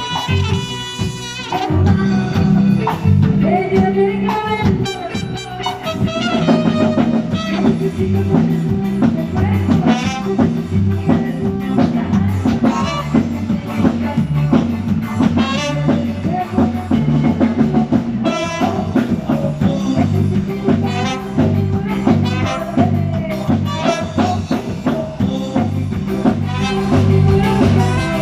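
Latin band music with a steady drum-kit beat, a moving bass line and brass or melodic lead lines.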